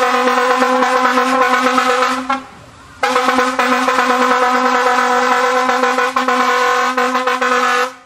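Air horn blowing two long, steady blasts on one pitch: the first is already sounding and stops after about two seconds, and the second starts about a second later and runs for about five seconds before cutting off at the end.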